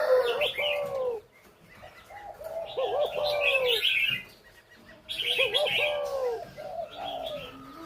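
Spotted doves cooing in three bursts of wavering phrases, with higher chirping from other small birds over them.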